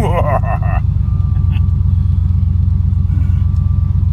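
Steady low road and engine rumble of a vehicle being driven, heard from inside the cab. A brief warbling squeak in the first second.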